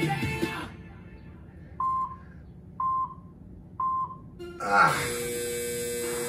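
Workout interval timer counting down: three short beeps about a second apart, then a longer, louder tone marking the end of the timed exercise interval. Backing music cuts out just before the beeps.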